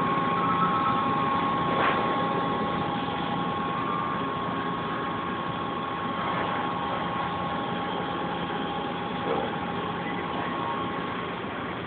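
Steady machine hum and fan noise from soda-fountain and ice-machine equipment, with two steady high whining tones running through it. A light knock sounds about two seconds in, and a smaller one near nine seconds.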